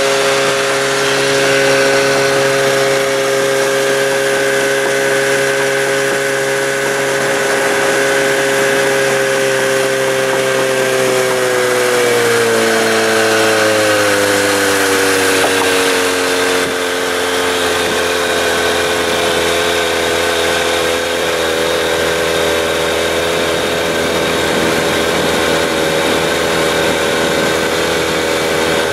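Bass boat's outboard motor running steadily, then slowing about eleven seconds in, its pitch sliding down over several seconds before holding at a lower speed.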